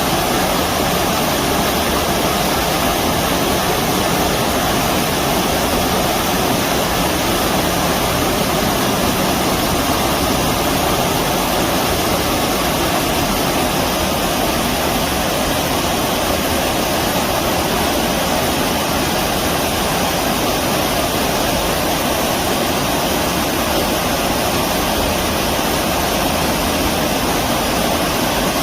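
Stream water rushing steadily, an even, unbroken noise.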